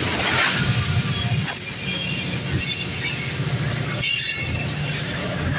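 Diesel freight train passing close by: the trailing locomotive rumbles past, then boxcars roll by, with high-pitched steel wheel squeal over a steady low rumble.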